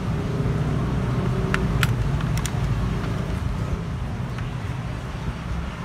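Steady low rumble of road traffic, with a few sharp clicks about two seconds in.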